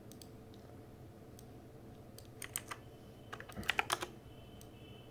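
Computer keyboard typing: scattered single keystrokes, with two quick flurries of keys about two and a half and nearly four seconds in, over a faint steady hum.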